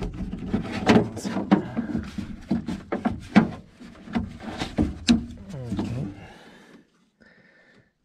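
Quick clicks, knocks and rattles of a plastic wiring connector and its wires being worked loose and pulled out through an opening in a car door's inner panel. The handling stops about six seconds in.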